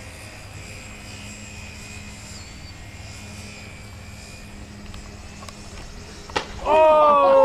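Electric RC model airplanes flying with a faint, steady motor whine over a wind-blown background. Near the end a click, then a loud, drawn-out shout of "Oh!" at the planes' clash.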